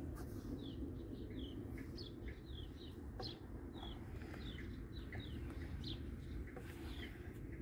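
A small bird chirping over and over, short falling chirps about twice a second, over a steady low rumble.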